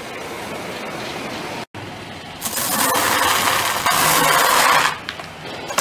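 Car tyre rolling over and crushing a block of dry instant noodles: a loud crunching crackle lasting about two and a half seconds. Before it, after a brief dropout, a lower steady noise of the car rolling.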